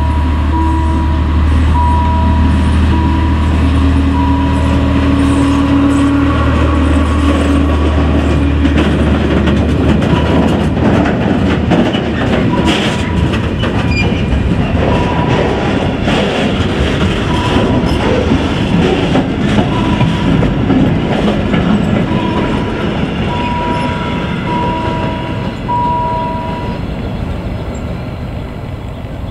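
A diesel locomotive passes with its engine running, followed by a long train of covered sliding-wall freight wagons rolling by with a rattling wheel clatter. The engine drone drops away after about eight seconds, and the rolling noise fades as the last wagon moves off near the end.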